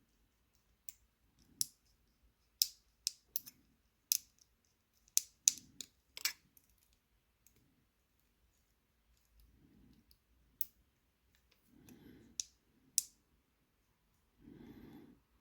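Small sharp metal clicks and taps, irregular and unevenly spaced, from handling a padlock's tiny core and its parts while taking it apart: a dense run of clicks in the first six seconds, then a few more later, with faint handling rustle between.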